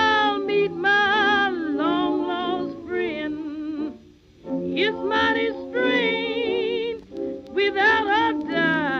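Background song: a singer yodeling with wide vibrato, the voice breaking between low and high notes, with a pause about four seconds in.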